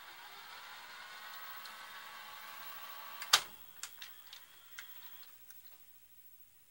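Sony SLV-60HFBR VCR rewinding a tape at high speed with a steady whir, its reels driven by a replacement belt made from a bicycle inner tube. About three seconds in a sharp clunk as the rewind stops, followed by a string of smaller clicks from the tape mechanism over the next two seconds as the deck changes mode.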